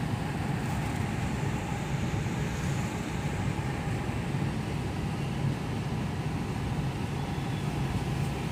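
Steady in-cabin noise of a car driving along a street: a low, even hum of engine and tyres on the road.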